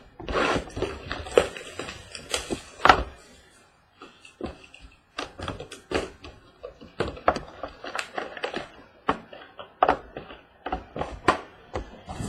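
A trading-card hobby box being opened and handled: a noisy rustling and tearing for the first few seconds, then a run of sharp clicks and taps of cardboard and packs.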